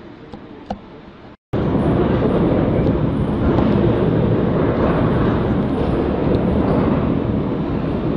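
Tsunami floodwater surging through the harbour, a steady rush of turbulent water mixed with wind on the microphone. The sound drops out for a moment about one and a half seconds in, then comes back much louder.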